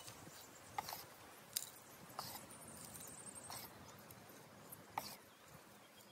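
Faint, slow footsteps: about five separate steps spaced unevenly around a second apart.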